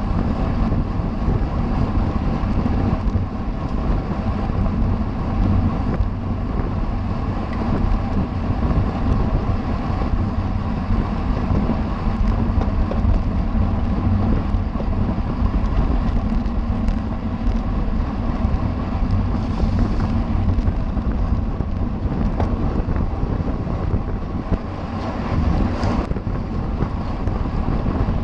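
Steady wind rushing over the microphone of a camera riding on a racing bicycle at speed, with a constant low rumble underneath.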